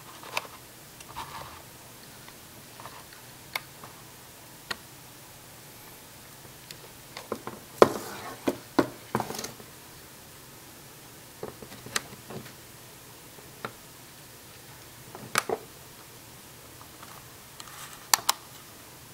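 Scattered clicks and knocks of a Polaroid Land Camera Model 250's metal controls being handled and worked, with a flurry of knocks about eight seconds in and a sharp pair of clicks near the end.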